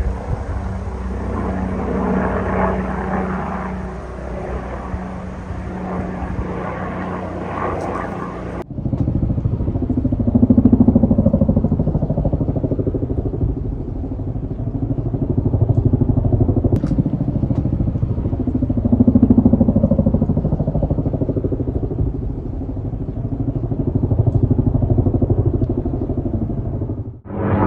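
Several engines running together with a rapid pulsing beat. The sound swells and fades in turn as the machines pass close and draw away. About nine seconds in it cuts abruptly to another recording.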